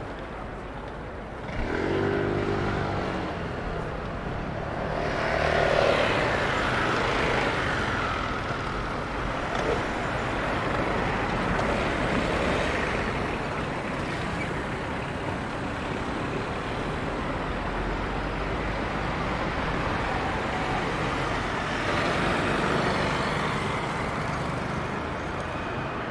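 City street traffic: motor vehicles running and passing, with a louder engine coming in about one and a half seconds in.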